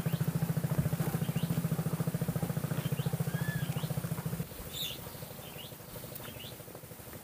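A small engine idling with a steady, rapid putter that cuts off about four and a half seconds in. Short high bird chirps sound over it and carry on after the engine stops.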